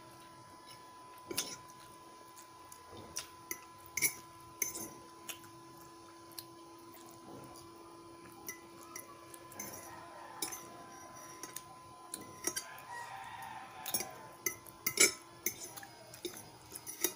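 Metal fork clinking and scraping against a plate in scattered sharp taps while noodles are eaten, over a faint steady hum.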